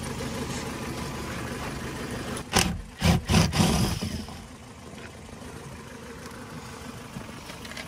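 Ford Focus 1.6 petrol engine idling as it warms up, a noisy, diesel-like clatter that the owner has been told may be the valve lifters. About two and a half seconds in comes a cluster of short, loud bursts from a driver undoing an undertray screw.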